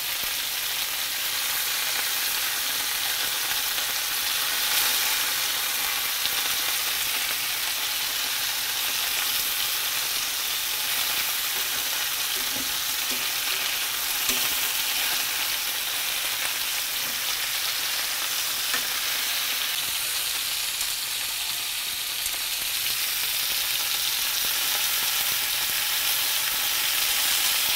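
Pieces of snapping turtle meat sizzling steadily as they brown in oil in a skillet, with occasional light clicks of metal tongs turning them.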